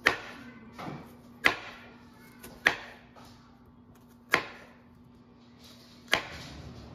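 Chef's knife slicing through an onion and knocking on a bamboo cutting board: five slow, sharp knocks about a second or more apart, with a softer one between the first two.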